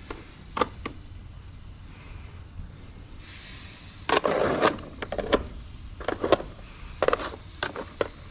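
Metal grill tongs clicking and scraping against a kettle grill's wire grate and a foil tray as sausages are moved: a couple of sharp clicks about half a second in, then a quick run of clacks in the second half.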